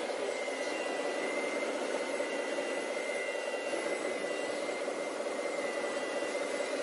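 Steady whine of radio-controlled scale construction models' electric motors, with an excavator working above a scale MAN TGA dump truck.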